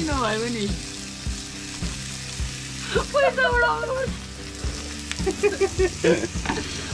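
Meat and vegetables frying on a gas barbecue grill, with a steady sizzle. Voices sound over it at times.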